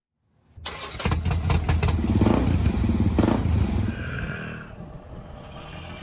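Motorcycle engine running and revved up twice, about two and three seconds in, then easing back to a steadier, quieter run.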